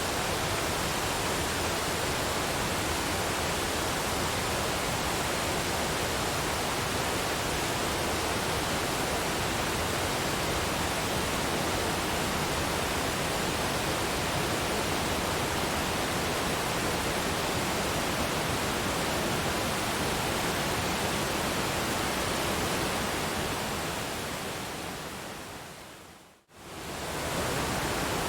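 Waterfall: a steady, full rush of falling water. Near the end it fades away almost to nothing for a moment, then swells back in.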